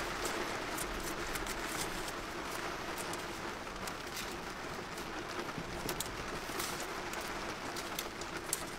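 Steady rain: a constant hiss with many separate drops ticking sharply on a surface.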